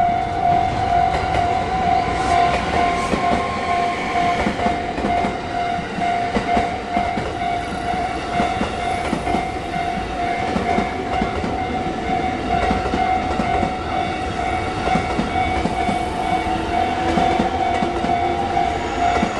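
Japanese level-crossing alarm sounding its repeating electronic bell tone without a break, while a train runs over the crossing with a steady clatter of wheels on the rails.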